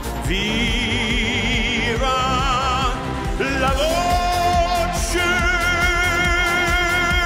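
A male singer holds a series of long notes with wide vibrato over band accompaniment. The last note scoops in about five seconds in and is held on.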